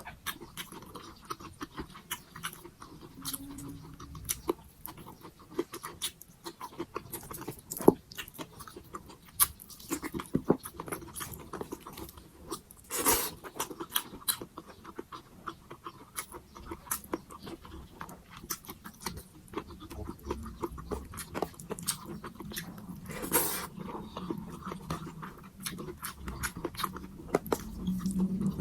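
Close-miked eating of pork sinigang: steady chewing with irregular wet smacks and mouth clicks. Two louder, longer noises come about halfway through and again about three-quarters of the way in.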